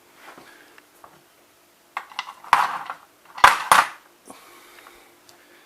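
Hard parts of a partly dismantled multistage pump clattering as they are handled and set down: a few light clicks, then two loud clattering knocks about a second apart, past the middle.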